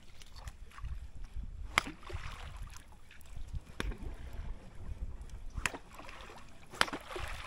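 Small waves sloshing and lapping in shallow water, with wind rumbling on the microphone. Four sharp splashes, about two seconds apart.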